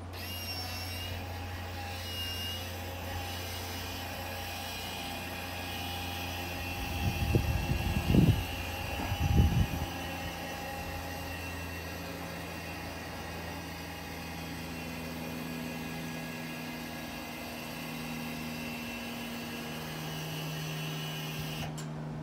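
Linear actuator gate opener's electric motor running with a steady hum and whine as it drives a metal tube swing gate closed, starting at once and cutting off as the gate reaches the closed position. Loud low rumbling bumps come through about seven to ten seconds in.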